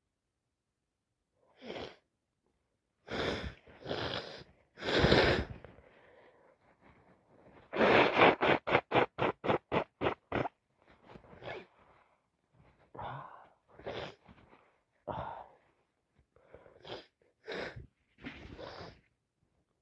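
A woman with a heavy head cold sneezing and sniffing: a few loud separate sneezes, then a rapid run of about a dozen short bursts in the middle, then smaller sniffs and snorts toward the end.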